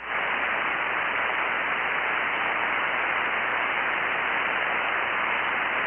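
Steady hiss of empty-channel band noise from a ham radio transceiver's receiver on 40-metre single sideband, with no station transmitting; it comes up abruptly and holds even, muffled, with no treble.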